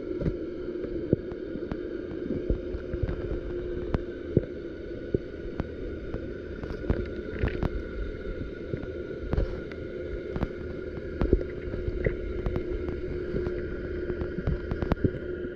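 A steady motor hum with many scattered, irregular clicks and knocks over it.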